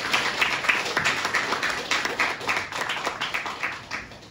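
Audience applauding after a talk. The clapping thins and dies away near the end.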